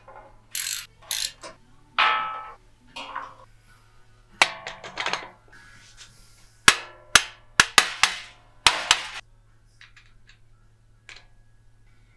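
Metal hand tools and bandsaw parts clinking and knocking in a string of separate sharp hits, while the bandsaw wheel is handled and a ratchet wrench is put on its axle nut. Under them runs a low, steady hum.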